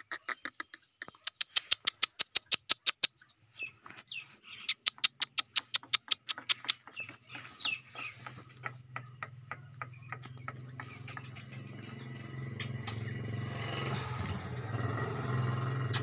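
Rapid runs of sharp clicks, about eight a second, in two bursts over the first seven seconds, with a few short chirps from a young black francolin among them. A low steady hum builds up and grows louder over the last few seconds.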